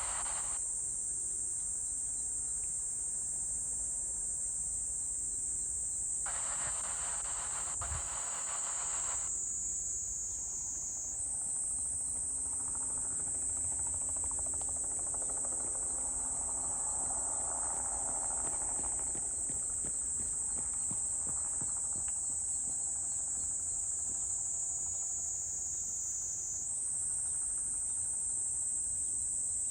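Steady high-pitched insect buzzing, likely a chorus of cicadas or crickets, that slowly drops in pitch and jumps back up twice. A brief thin, radio-like voice cuts in a few seconds in.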